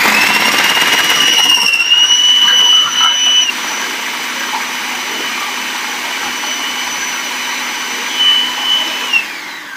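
Electric food processor motor running with its slicing disc, cutting Japanese cucumbers into thin slices: a high whine that rises as it spins up, runs louder for the first three and a half seconds, then steadier and quieter. It winds down with a falling whine just before the end.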